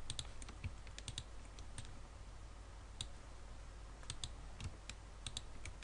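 Faint, irregular clicks from a computer mouse and keyboard while anchor points are picked and dragged, over a low steady hum.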